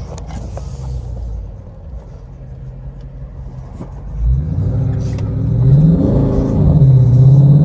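Car engine running low for the first few seconds, then revving hard from about four seconds in, its pitch rising, dipping and rising again as the car is pushed into a slide on snow.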